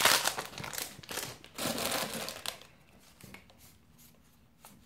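Foil wrapper of a Magic: The Gathering booster pack crinkling as it is torn open and pulled off the cards. The crinkling is loudest in the first two and a half seconds, then dies down to a few faint rustles.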